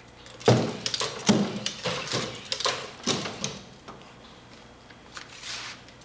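Powered bipedal walking robot clattering on its wooden walkway: a dense run of irregular knocks and clacks lasting about three and a half seconds, then a few softer knocks near the end.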